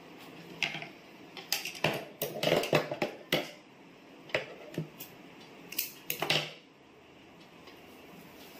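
Irregular sharp metal clicks and clinks of small sewing-machine parts being handled around the needle and presser foot, about a dozen, thickest two to three seconds in and stopping at about six and a half seconds.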